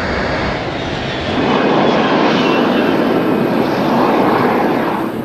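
Boeing 747 Shuttle Carrier Aircraft's jet engines running loud, a steady rushing noise that swells a little about a second and a half in.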